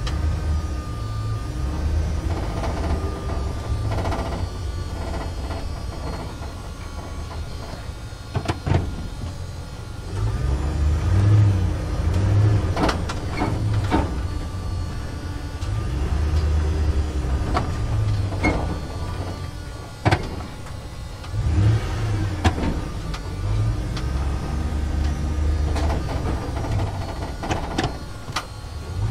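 Truck engine running as the truck drives through a parking structure, its low rumble getting louder and rising and falling from about ten seconds in. Sharp knocks sound here and there over the engine.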